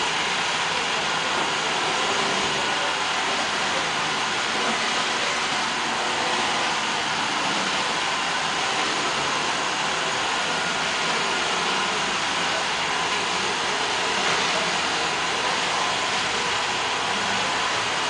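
iRobot Roomba robot vacuum running on a hardwood floor: a steady whirring hiss of its suction motor and spinning brushes, with a faint high whine.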